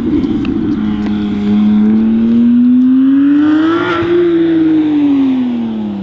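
Porsche 911 GT3 RS's naturally aspirated flat-six accelerating past: the engine note climbs in pitch to a peak about four seconds in as the car goes by, then drops away.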